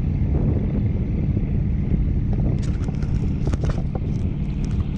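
Wind buffeting the microphone of a camera carried high on a parasail, a steady low rumble. From about halfway, scattered knocks and rubs as a finger handles the camera.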